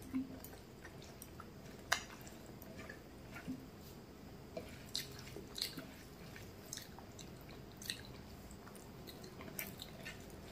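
Fingers mixing rice and lentil-fritter curry on a plate, giving soft wet squishes and scattered small clicks, along with chewing.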